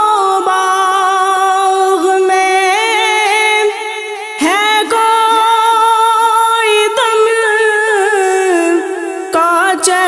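Devotional naat sung a cappella: layered voices hold long notes with wavering melodic ornaments, pausing briefly twice before a new phrase.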